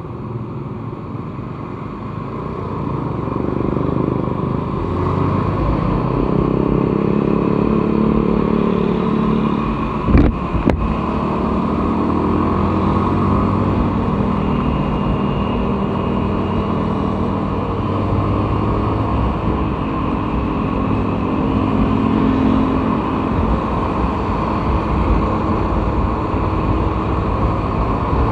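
Small Yamaha Vega ZR underbone motorcycle engine pulling away from a standstill, rising in pitch and loudness over the first few seconds, then running steadily at road speed among other motorcycles and cars. A single short knock comes about ten seconds in.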